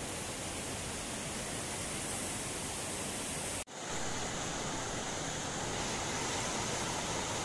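Steady rushing hiss, cut off for an instant about three and a half seconds in; after that, a mountain stream rushing over rocks.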